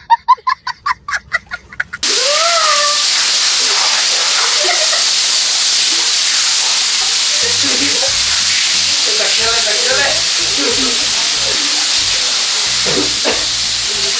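A child's hearty laugh in quick bursts for about two seconds, which then cuts off. Several aerosol snow-spray cans follow, spraying at once with a loud, steady hiss and people shouting over it.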